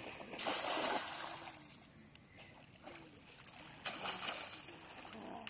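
A cast net lands on shallow water with a splash about half a second in. A few seconds later a hand splashes water at the shoreline.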